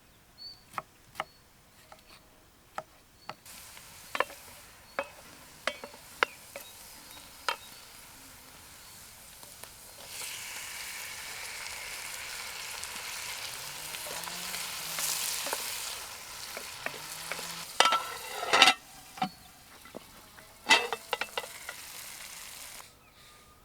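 Food sizzling in a hot pan: a steady hiss that grows louder for several seconds in the middle, with scattered clicks and a few louder knocks of a utensil against the pan.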